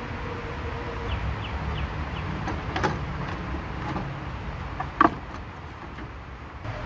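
Plastic radiator fan assembly of a 2002–06 Honda CR-V being worked up and out of the engine bay, its shroud scraping and clattering against the radiator and core support, with one sharp knock about five seconds in. A steady low rumble runs underneath.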